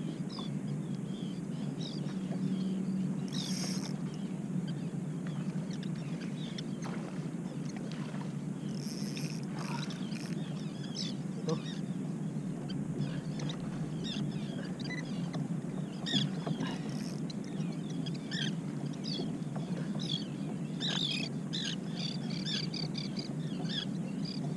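Steady wash of water around a kayak hull, with scattered faint high chirps and two brief hissing bursts, about three and nine seconds in.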